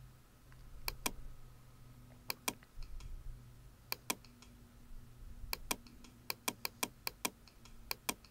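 Computer mouse clicks and a few keyboard keystrokes: sharp single clicks, often in quick pairs, with a rapid run of them in the second half. A faint steady hum lies underneath.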